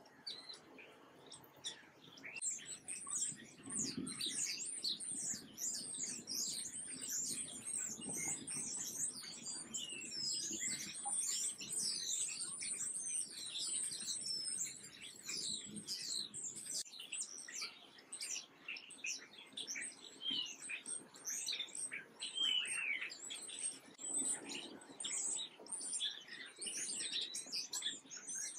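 A dense chorus of small birds chirping, many short high chirps overlapping without a break; it starts faint and fills in about two seconds in.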